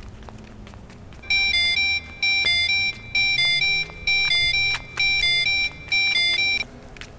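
A simple electronic beeping tune, ringtone-like, in high pure notes. The same short two-note phrase plays about six times, roughly once a second, starting about a second in and stopping near the end.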